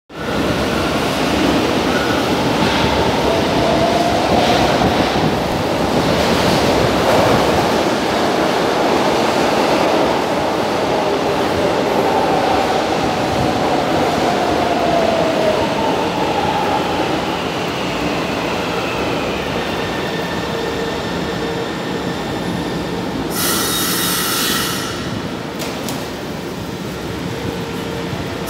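São Paulo Metro Line 1-Blue train pulling into the station: a steady rumble of wheels on rail, with wheel squeal in gliding rises and falls, easing off as the train slows to a stop. There is a short burst of hiss about 23 seconds in.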